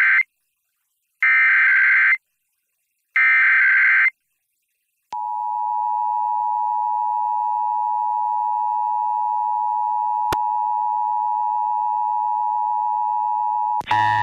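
Emergency Alert System SAME digital header: three short screeching data bursts, each about a second long with a pause between. After a moment of silence a steady EAS attention tone near 1 kHz comes in and runs for about nine seconds, then cuts off abruptly with a click just before the end.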